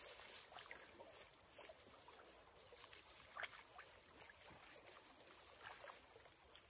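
Near silence: faint creek water with a few soft splashes and ticks, as hands are rinsed in the creek.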